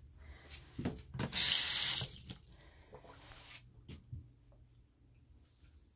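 Water rushing from a bathroom tap for under a second, turned on and quickly shut off, with a few soft knocks around it.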